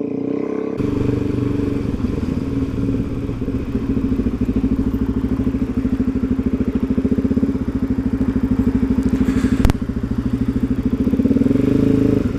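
Suzuki DRZ400SM's single-cylinder four-stroke engine running steadily under way, with a quick pulsing beat. A single sharp click sounds about ten seconds in, and the engine note dips slightly near the end.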